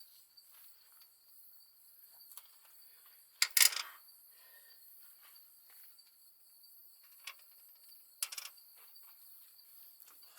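Insects chirring in a steady high drone, broken by a few sharp clicks and knocks: a loud one about three and a half seconds in and smaller ones near seven and eight seconds.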